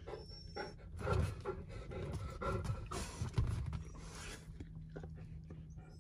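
Large Newfoundland dog panting, in irregular breathy bursts that are strongest in the first part, over a steady low hum.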